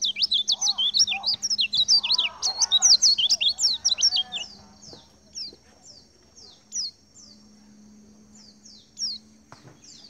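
A group of white-eyes (pleci) chirping together: a dense run of rapid, high, quick sliding chirps for about four and a half seconds, then thinning to single short falling chirps every second or so. Softer, lower calls sound underneath during the busy first half.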